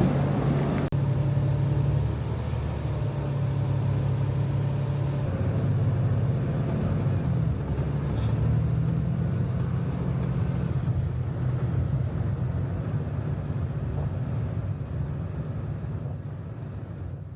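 Steady low rumble of a vehicle in motion, with a low hum that shifts a little in pitch; it fades down near the end.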